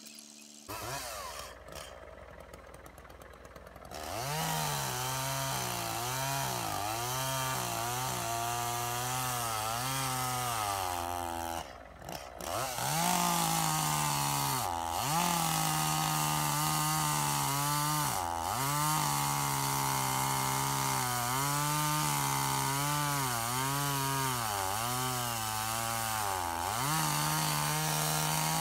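Chainsaw cutting through a charred log, its engine note repeatedly dropping under load and rising again. It comes in loud about four seconds in and dips briefly near the middle.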